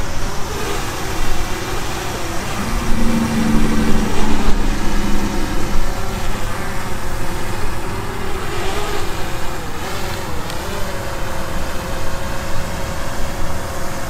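DJI Mavic 2 quadcopter's propellers and motors buzzing as it hovers and manoeuvres, the pitch dipping and rising a few times near the middle as the motors change speed.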